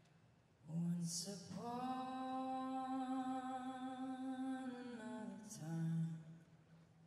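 A single unaccompanied voice sings one long held note. It slides up into the note about a second in and drops back down near the end, with a soft hiss of a consonant as it starts and as it ends.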